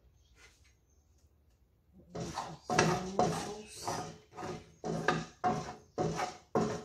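A spatula scraping the inside of a frying pan in quick repeated strokes, about two a second, starting about two seconds in, as the last of the sauce is scraped out of the pan.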